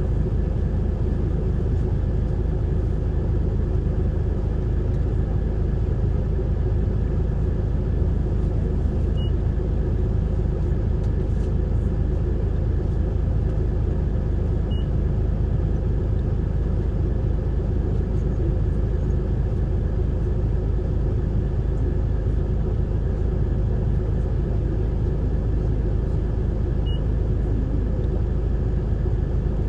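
Isuzu Erga city bus diesel engine and drivetrain running with a steady, even rumble, heard from inside the bus. Faint short chirps come three times.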